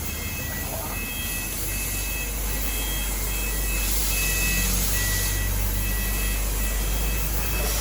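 A 3000 W fiber laser cutting machine running: a steady low hum with short, faint high whining tones coming and going, and a burst of hiss from about four to five seconds in.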